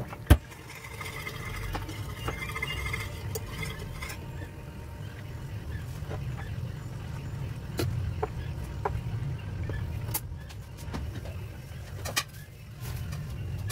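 Thick gravy simmering in a frying pan over a gas burner, with scattered soft pops as bubbles burst, over a steady low hum. One sharp knock near the start is the loudest sound.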